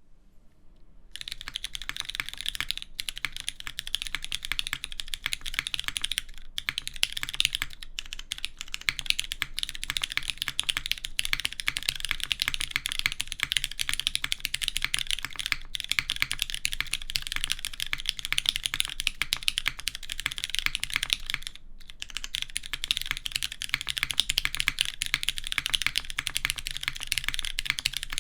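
Continuous fast typing on a Merisi Sessantacinque custom mechanical keyboard with lubed, filmed Hyperglide Cherry MX Brown tactile switches on a polypropylene plate, soldered PCB and GMK keycaps: a dense patter of keystrokes. The typing fades in over the first second and breaks off briefly about 21 seconds in.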